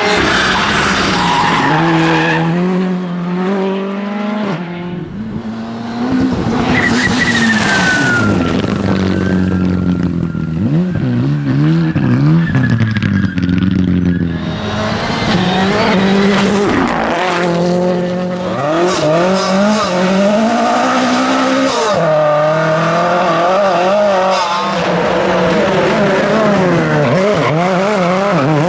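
Rally cars driving flat out on a stage, engines revving up and falling back again and again through gear changes, with tires skidding and squealing.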